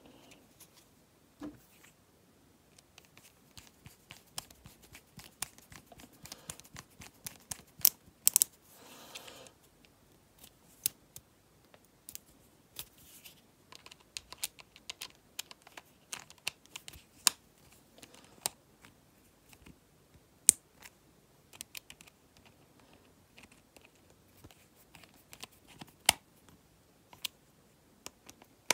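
Irregular small clicks and taps of a baitcasting reel's metal parts and a small screwdriver being handled as the reel is screwed back together, with a short scraping rattle about eight seconds in.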